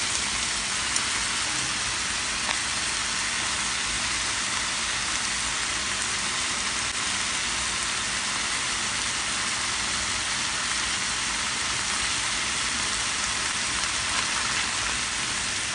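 Corn kernels sizzling steadily in a very hot frying pan, the butter dropped in melting at once, with a few faint taps of the spatula.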